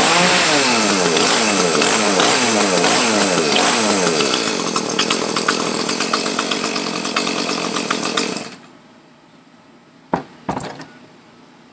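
Echo two-stroke chainsaw test-run after a stripped bar stud was repaired. The engine revs up and down repeatedly, then runs steadier with a fast rattle, and cuts off suddenly about eight and a half seconds in. Two short knocks follow shortly after.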